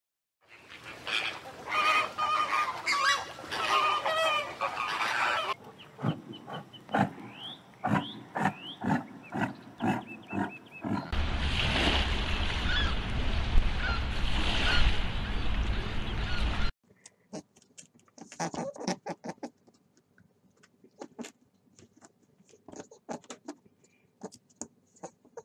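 A flock of flamingos honking in a dense goose-like chorus, followed by separate rising calls. About eleven seconds in, a loud steady rushing noise with a deep rumble takes over for several seconds and then cuts off, leaving only faint scattered clicks.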